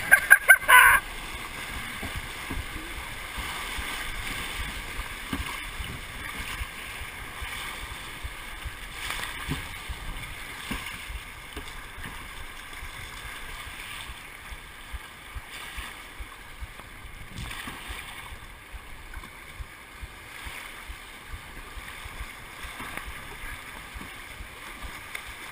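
Whitewater rapids rushing around a kayak, with a burst of loud splashing as a wave breaks over the bow in the first second, then steady churning water with occasional splashes.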